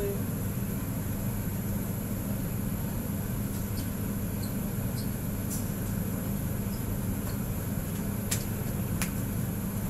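Steady low machine hum with a thin high whine over it, and two sharp clicks about half a second apart near the end.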